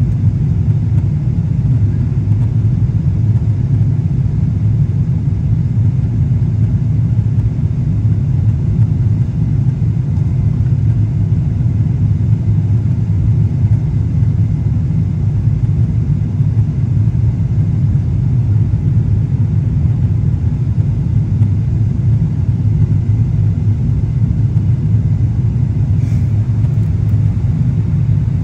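Airliner cabin noise in flight: a steady, loud low rumble of engines and rushing air heard from inside the passenger cabin.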